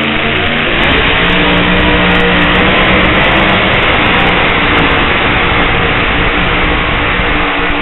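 Pulling tractor's engine running loud and steady at full throttle during a tractor pull.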